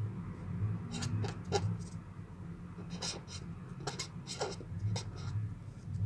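Pen writing on paper: short scratchy strokes in clusters about a second in, from about three to four and a half seconds in, and near five seconds, over a steady low hum.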